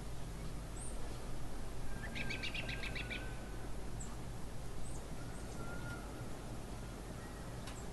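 Small birds chirping outdoors: a quick trill of about eight notes a couple of seconds in and a few short, high chirps, over a steady low rumble of background noise.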